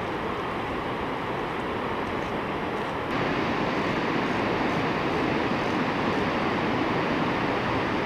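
Waterfall roaring: a steady rush of falling, churning water that gets louder about three seconds in.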